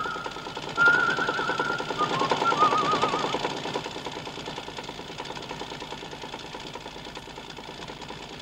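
Old truck engine chugging in a fast, even rhythm, growing fainter toward the end. A whistled tune plays over it for the first three seconds, its last notes warbling.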